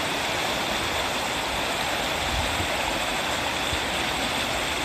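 Steady rushing of flowing water, an even hiss with no breaks or changes.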